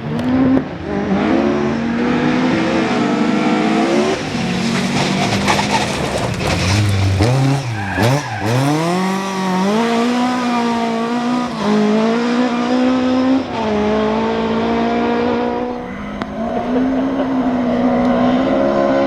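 Ford Escort rally car engine running hard at full throttle. It climbs in pitch and drops back at each gear change, several times over. About eight seconds in the pitch falls sharply and climbs again.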